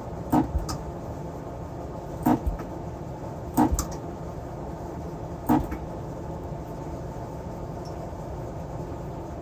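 Sharp short clicks, mostly in close pairs a fraction of a second apart, four times in the first six seconds, over a steady background hum.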